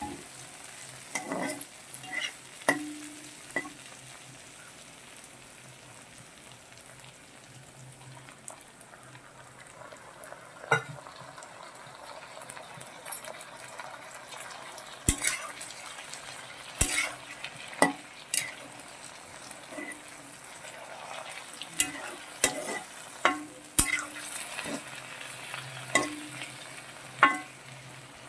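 Vegetables and fenugreek greens frying in oil in a pan, a steady low sizzle, while a utensil stirs them, scraping and knocking sharply against the pan at irregular intervals, more often in the second half.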